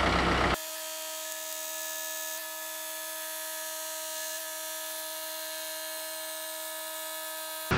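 A steady, high-pitched machine whine made of several even tones, with no low rumble, cutting in abruptly about half a second in and cutting off abruptly near the end; before it, the compact tractor's diesel engine is running.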